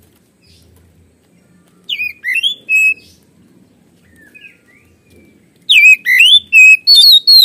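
Oriental magpie-robin singing loud, clear whistled phrases of sliding notes in two bursts: a short one about two seconds in and a longer, louder one near the end.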